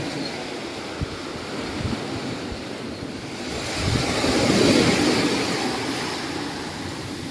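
Small sea waves breaking and washing up a sandy beach, with wind on the microphone; the surf swells to its loudest a little past halfway, as a wave runs up the sand. A few soft thumps come in the first two seconds.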